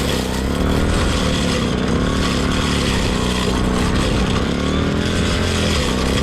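Small petrol engine of a grass-cutting machine in a rice paddy running steadily under load, its pitch wavering slightly.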